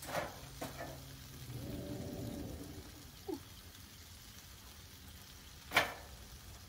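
Chicken sizzling faintly on a Blackstone flat-top griddle, with a few sharp clicks of a metal spatula on the griddle, the loudest about a second before the end. A brief humming tone sounds about two seconds in.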